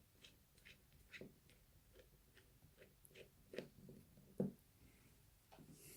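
Faint, irregular clicks and taps of small metal lock parts and tools being worked, with two sharper clicks about three and a half and four and a half seconds in, as a lock cylinder is being taken apart.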